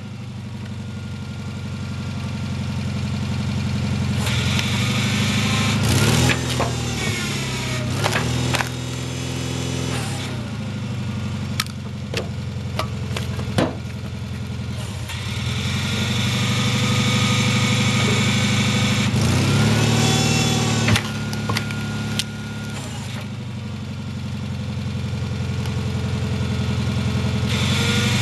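Volkswagen 40 hp air-cooled flat-four engine running a log splitter, its pitch sagging and recovering several times as it takes load. A few sharp knocks come through over it.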